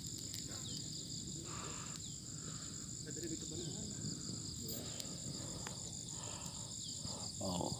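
Steady, high-pitched chorus of insects such as crickets or cicadas, holding two pitches without a break, with faint voices in the background.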